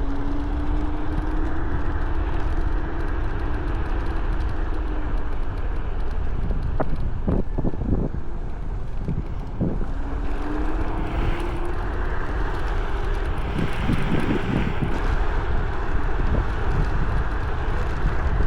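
Wind rushing over the microphone with tyre noise while riding an electric scooter. The motor's faint whine rises slowly twice, near the start and again past the middle. A few sharp knocks come around the middle, as over bumps.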